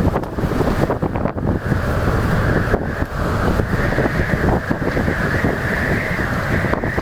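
Storm-force wind buffeting the camera microphone in a loud, continuous roar of noise, with surf from a rough sea underneath.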